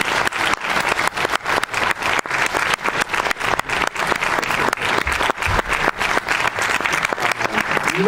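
Audience applauding steadily, dense clapping throughout.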